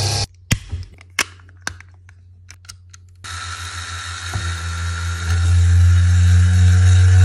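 Small electric motor of a battery-powered unicycle walker robot toy whirring, then cutting off suddenly. A few sharp clicks and taps follow as the plastic toy is handled. About three seconds in, the motor starts again and builds to a steady, louder hum.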